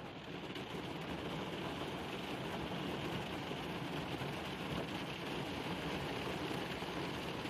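Steady rain falling on the roof of a minivan camper, heard from inside the van.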